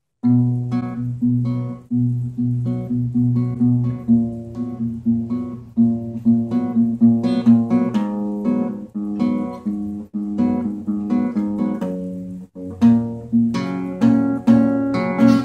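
Acoustic guitar played in a steady rhythm of repeated strokes, with chord changes partway through.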